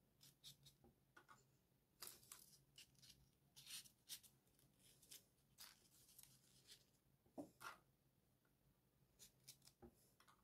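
Faint, irregular rustling and scratching of small folded paper origami modules being handled and pushed into one another.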